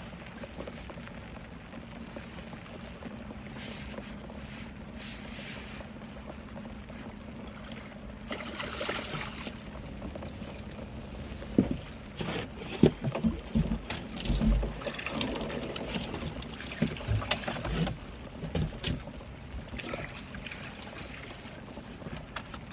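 Rain and trickling water on a small fishing boat, with a faint steady low hum. From about eight seconds in come scattered knocks and clunks as a freshly netted catfish is handled aboard.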